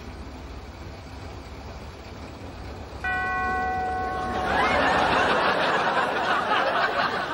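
A classic Mini's engine idling low, then a steady electronic beep from the car park pay machine lasting about a second and a half. A studio audience then bursts into loud laughter.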